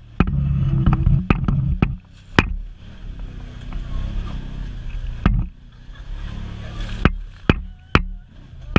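Side-by-side utility vehicle's engine running as it drives along a rough dirt trail, its level rising and falling, with about a dozen sharp knocks and rattles as it jolts over the ground.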